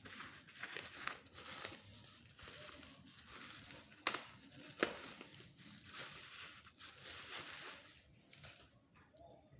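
Plastic packaging crinkling and rustling as it is handled and pulled off, with two sharp clicks about four and five seconds in; the rustling dies away near the end.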